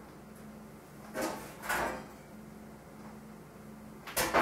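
Kitchen handling noises: two short scraping or rustling sounds a little over a second in, then a sharp knock near the end, over a faint steady low hum.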